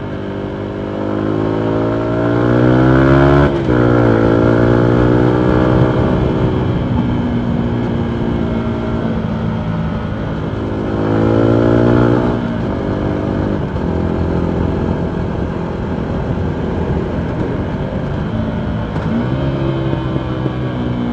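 Yamaha MT125's single-cylinder four-stroke engine through a full Akrapovic exhaust, the bike riding through the city. The engine note climbs as the bike accelerates, breaks off at a gear change about three and a half seconds in, climbs again around eleven seconds, and then runs steadily.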